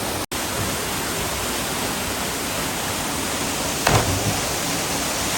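Steady rushing noise of a waterfall. A sudden thump breaks through it about four seconds in.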